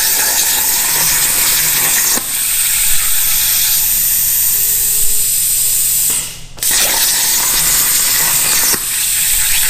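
CNC plasma torch cutting steel: a loud, steady hiss of the arc and compressed air, which cuts out for about half a second six seconds in and then restarts.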